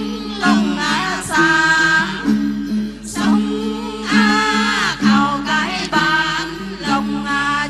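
Tày Then singing, a woman's voice in the lead, over a steady repeating accompaniment of plucked đàn tính lutes.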